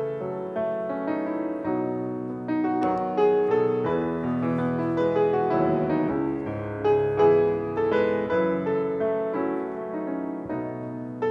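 Piano playing the instrumental introduction to a hymn: a steady succession of chords under a melody.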